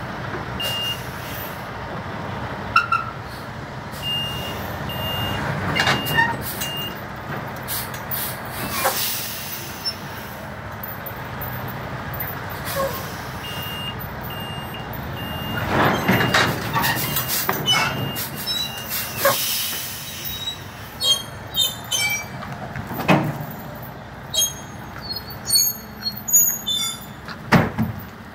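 Flatbed lumber delivery truck running during unloading, its reversing alarm beeping steadily in two spells. There are loud hisses of released air between the beeps, and near the end a run of sharp knocks and clanks.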